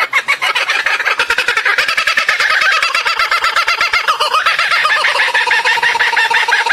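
A flock of birds calling: many quick chirping notes overlapping in a continuous chatter.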